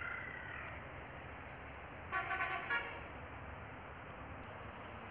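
A horn sounding a few short toots in quick succession about two seconds in, at a steady pitch, over a low steady background.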